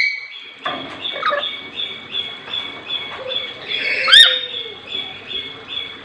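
Caged lories calling: a rapid run of short, high chirps, about three a second, with one louder call that rises and falls about four seconds in.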